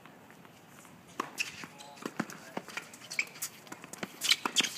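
Tennis balls hit by racquets and bouncing on a hard court: an irregular run of sharp knocks that begins about a second in, with the loudest hits a little past four seconds.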